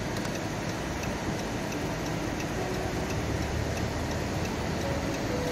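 Car's turn-signal indicator ticking evenly, about two ticks a second, over the steady road and cabin noise of the car rolling slowly on a snowy street.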